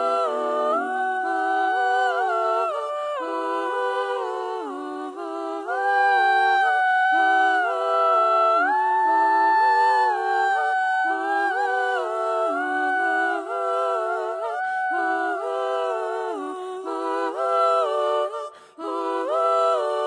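Several voices singing a traditional Icelandic lullaby a cappella in close harmony, moving in steps between held notes, with the fullest, longest-held chord about halfway through.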